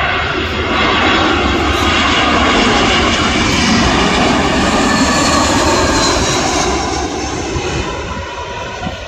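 Airbus A320-family twin-jet airliner on final approach with its landing gear down, passing low overhead: a loud, steady jet rush with a faint whine, fading over the last couple of seconds.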